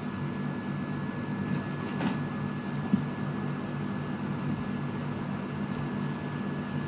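Steady low background hum with a faint, constant high-pitched whine over it, and one small click about three seconds in.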